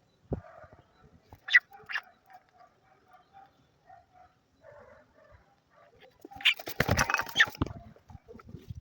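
Native chickens calling: two sharp squawks about a second and a half in, soft repeated clucking, then a louder, noisy flurry of squawking near the end.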